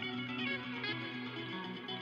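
Background music: a plucked guitar playing a run of notes.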